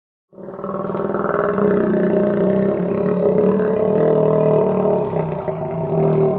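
Alligator growl: one long, rough growl that starts suddenly about a third of a second in and holds steady.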